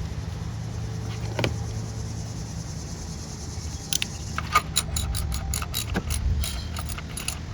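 Ratchet of a socket wrench clicking in quick irregular runs as the new PCV valve is tightened into the engine's valve cover, after a single click about a second and a half in.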